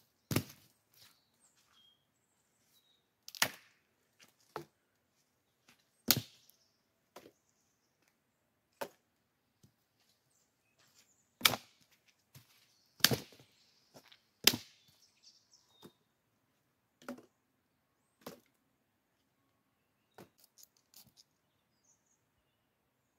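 Wooden branches knocking together as they are laid onto a teepee-style stack of sticks: a dozen or so sharp, separate wooden knocks a second or more apart. Near the end, a few lighter quick ticks.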